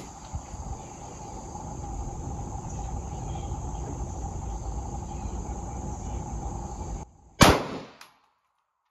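Steady background noise with a low rumble, then a single 9mm pistol shot about seven and a half seconds in, the loudest sound, dying away within half a second.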